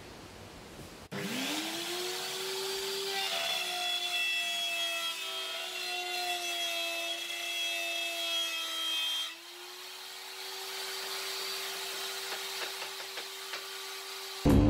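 Router in the home-built router table switched on about a second in, its motor whining up to speed. From about three seconds in it runs lower and louder while cutting wood, and around nine seconds the pitch rises again as it runs free. Music cuts in just before the end.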